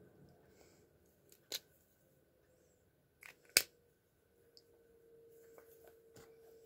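A few sharp plastic clicks from an alcohol marker being handled and its cap snapped shut, the loudest about three and a half seconds in, with a faint steady hum in the background.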